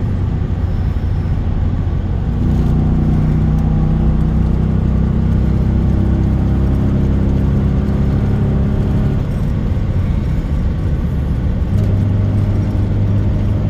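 Chevy Silverado's high-mileage LS V8 engine running steadily under way, its note shifting pitch a few times as engine speed changes; the owner suspects its lifters are bad.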